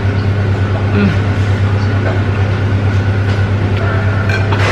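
A steady low mechanical hum, unchanging in pitch and level.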